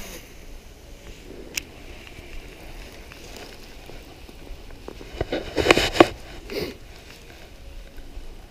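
Close rustling and crackling handling noise from the angler's movements right at the microphone, with one sharp click about a second and a half in and a louder spell of crackling a little past halfway.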